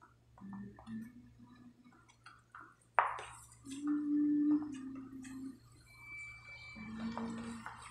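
Metal spoon scraping and tapping against a plastic tub of thick flour batter while banana slices are coated, with small scattered clicks and one sharp clack about three seconds in.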